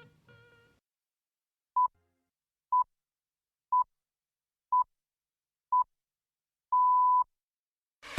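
BBC Greenwich Time Signal pips: five short, identical high beeps exactly a second apart, then a longer sixth pip that marks the start of the hour. The end of a guitar tune fades out just at the start.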